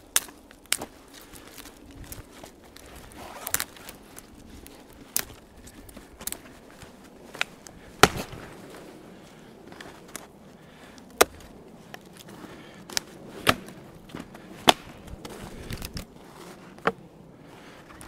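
Frozen dead branches snapping as they are broken by hand: more than a dozen sharp cracks at irregular intervals, the loudest about eight seconds in.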